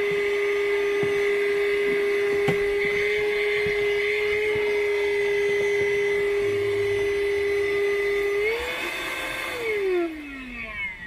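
Worx WX030 cordless handheld vacuum cleaner running steadily at its low speed with a steady whine. Near the end its pitch rises briefly as the single button steps it to high, then the whine falls away as the motor is switched off and spins down.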